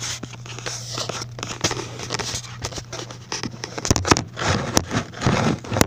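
Blanket fabric rustling and scraping right against the microphone, with handling knocks and crackles, getting louder in quick bursts over the last two seconds. A steady low hum runs underneath.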